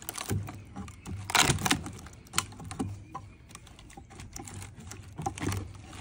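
Split red oak plank cracking and splintering as a steel pry bar levers it apart, a run of sharp clicks and snaps. The loudest cracks come about a second and a half in, with another cluster near the end.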